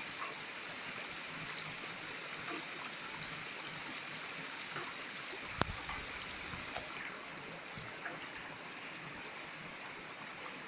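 Shallow stream water running steadily over rock while a metal gold pan (bateia) full of gravel is swirled in it. One sharp click a little past halfway, followed by a few faint ticks.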